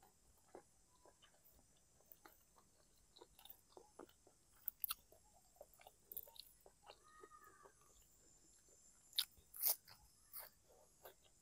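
Close-miked eating: a person chewing with soft wet mouth clicks, then two louder crunchy bites near the end as fresh greens go into the mouth.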